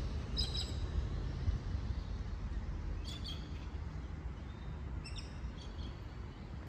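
Birds chirping in a few short bursts of calls over a steady low outdoor rumble.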